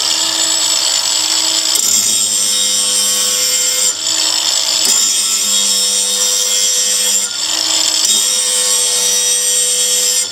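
Angle grinder with a grinding disc running against the edge of a steel mower blade, sharpening it in place on the deck: a steady motor whine under a hissing grind, easing off briefly about four seconds in and again about seven seconds in.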